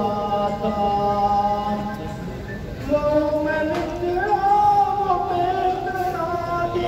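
A man singing a tarana solo into a microphone over a PA system, drawing out long held notes; he breaks off briefly about two and a half seconds in, then takes up a new long note.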